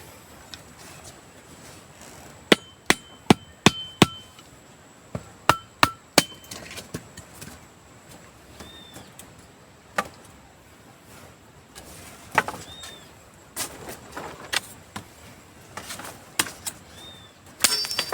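A metal tool chopping or hammering wood: a quick run of about five sharp strikes, then four more, then scattered softer ones and a cluster near the end, each hit ringing briefly. Three short high chirps sound between the strikes.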